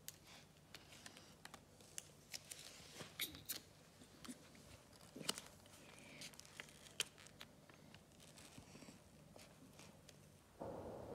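Faint, scattered small clicks and crinkles of a paper sticker being peeled from its backing and pressed and smoothed onto an album page, with a brief louder rustle near the end.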